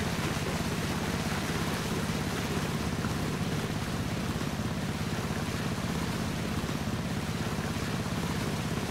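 Motorboat engine running steadily, with water rushing and churning past the hull.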